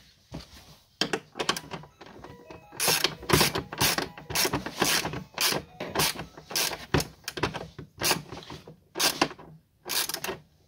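Socket ratchet wrench clicking in quick, repeated back-and-forth strokes as it turns the nut on a gas strut's mounting bolt.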